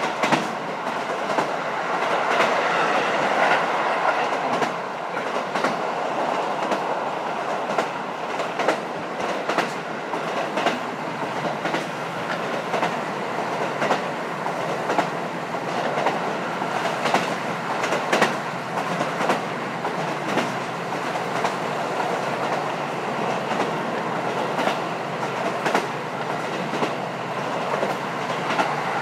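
Interior running sound of a KiHa 54 diesel railcar under way, heard from the seat over the engine with a window slightly open: a steady rumble of engine and running gear, with irregular clicks as the wheels pass over rail joints.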